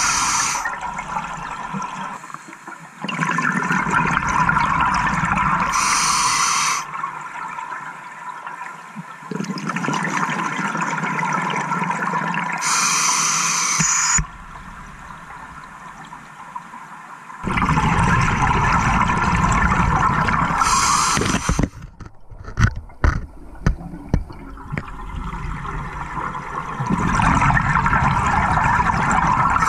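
A scuba diver's regulator breathing underwater: long gurgling rushes of exhaled bubbles alternating with short hissing inhalations, about one breath every seven seconds. A few sharp clicks come about two-thirds of the way through.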